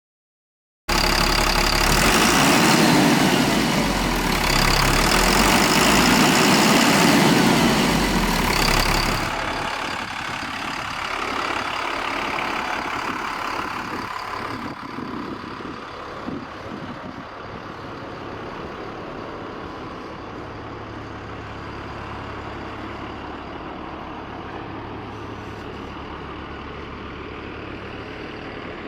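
Blue Bird TC2000 school bus engine running loudly for the first several seconds, rising and falling twice, then settling to a steady idle.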